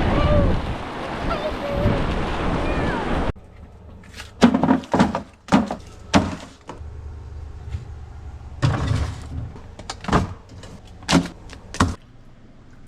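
Ocean surf and wind buffeting the microphone, cut off abruptly about three seconds in. A quieter room follows, with a string of sharp knocks and clatters, several in quick succession and then a few more spaced a second or so apart.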